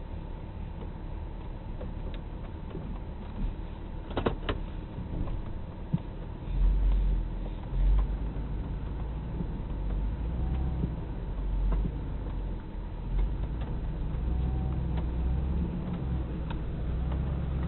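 Motor vehicle engine running steadily with a low hum, which grows louder about six and a half seconds in. A couple of knocks sound about four seconds in.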